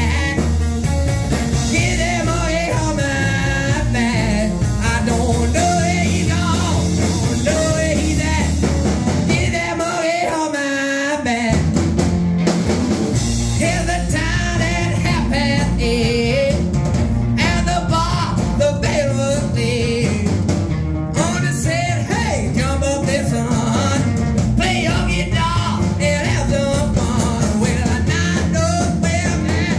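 Live rock and roll band playing: hollow-body electric guitar, upright double bass and drum kit, with a man singing. About ten seconds in, the bass and drums drop out for about a second, then the band comes back in.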